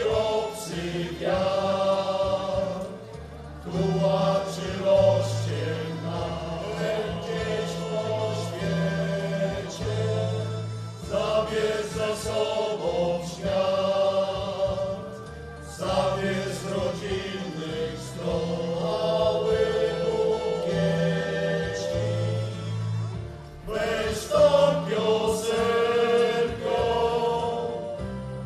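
Music: a choir singing in harmony over sustained bass notes, phrase by phrase with short breaks between.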